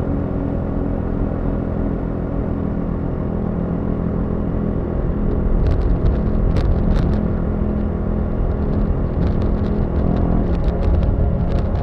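Motorcycle engine running steadily while riding, getting louder about halfway through, with scattered short clicks in the second half.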